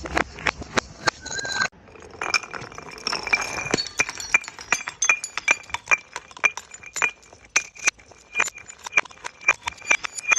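Glass bottles clinking and breaking: a rapid series of sharp glass hits, several a second, many leaving a short ringing tone. The sound cuts off for a moment just under two seconds in, then the hits go on.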